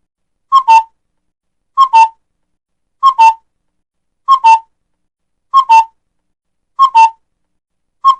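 A looped two-note bird call sound effect, whistle-like, with the second note a little lower than the first. It repeats evenly about every second and a quarter, with dead silence between calls.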